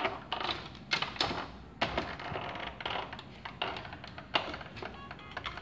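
Plastic clicking and tapping from the hand-cranked conveyor ramp of a VTech Go Go Smart Wheels train station playset as its crank gear is turned, with music playing alongside.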